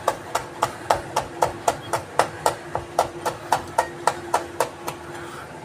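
Chef's knife chopping fresh red chillies finely on a plastic cutting board, the blade tapping the board about four times a second. The chopping stops about five seconds in.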